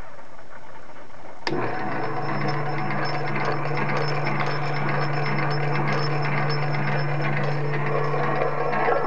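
Hobart 4812 bench-top meat grinder's 1/4 HP electric motor switching on with a click about one and a half seconds in, then running steadily with a low hum and a thin high whine.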